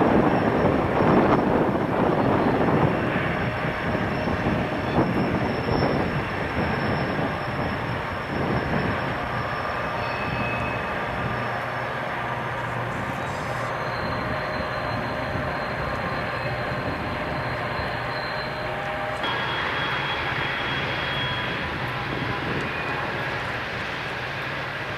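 Distant Santa Fe freight train's diesel locomotives running, a steady low drone that is louder and more uneven for the first several seconds, then evens out.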